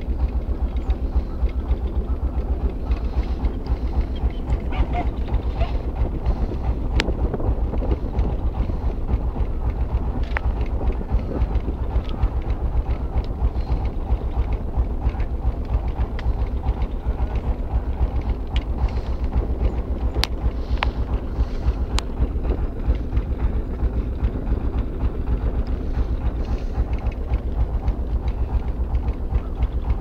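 Boat engine running steadily with a low, rapid chugging pulse, a few sharp clicks over it.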